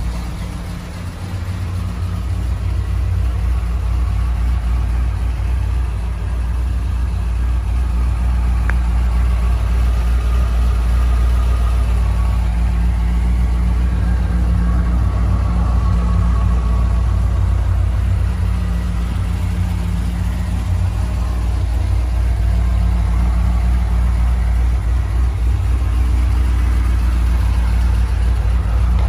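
Supercharged V8 of a 2008 Corvette Callaway C16 idling steadily.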